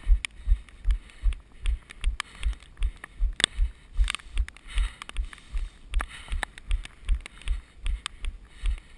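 A runner's footfalls thudding in a steady stride, about three a second, with small clicks and rattles between them.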